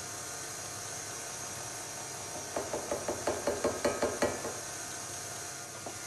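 KitchenAid stand mixer running steadily on its lowest speed with the beater attachment. Midway, a quick, even run of about a dozen slapping knocks, about seven a second, as liquid is poured into the turning batter.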